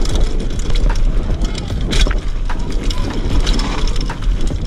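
Wind rumbling on a handlebar-mounted action camera's microphone as a mountain bike descends a dirt trail at speed, with the bike's rattles and knocks over bumps in the trail; the sharpest knock comes about two seconds in.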